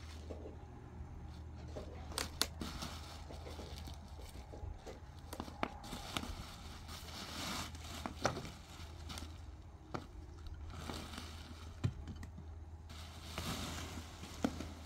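Irregular knocks and clicks with rustling and crinkling in between, over a low steady hum.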